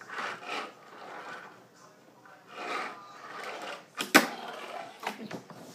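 Tech Deck fingerboard on a wooden tabletop: short rolling swishes of its wheels, then a sharp clack about four seconds in as the board snaps against the table, with a couple of lighter taps after it.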